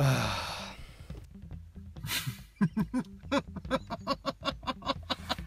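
A loud, sudden noisy sound with a falling tone at the start, then from about two and a half seconds in a man laughing hard in rapid short bursts, about four a second.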